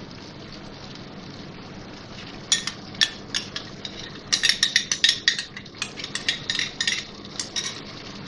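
Onion and spice masala frying in oil in a non-stick pan with a steady low sizzle. From about two and a half seconds in, yogurt poured into the hot oil sets off loud, sharp crackling and spattering for several seconds.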